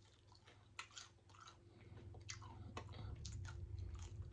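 Faint, close-up chewing of fried fish, with a scatter of small crunches and mouth clicks.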